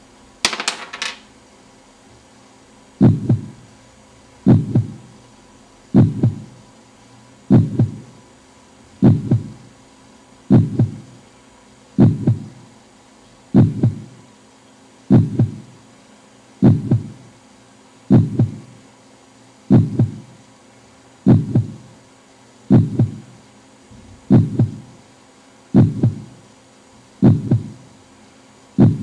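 A brief clatter of quick clicks about half a second in, then a steady series of dull thuds about one and a half seconds apart, each followed closely by a fainter second beat, like a slow heartbeat, over a faint steady hum.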